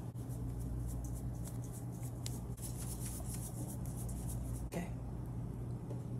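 Seasoning bottle and packet being handled over a pot of raw chicken: faint ticks, taps and rustles over a steady low hum.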